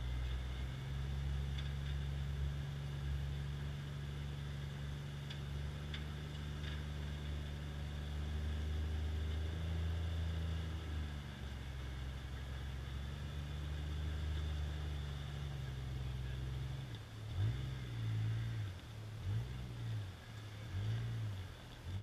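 Off-road competition buggy's engine running at low revs with slow changes in pitch, then revved in several quick blips near the end.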